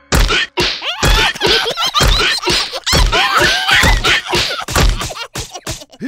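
Cartoon sound effects: a heavy thud about once a second, six in all, among quicker knocks and squeaky, gliding cartoon voice sounds.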